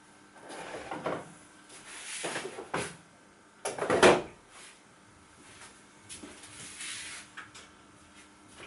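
A person moving about a workshop and handling things at a bench: a few irregular rustles and knocks, the loudest about four seconds in.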